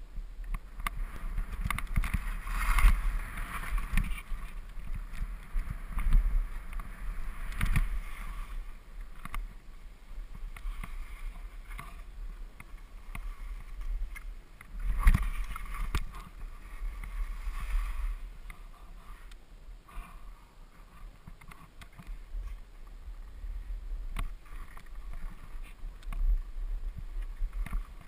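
Skis scraping and hissing over packed snow, swelling with each turn, heard through a helmet-mounted camera. Low wind rumble on the microphone runs underneath, with scattered knocks from bumps in the snow.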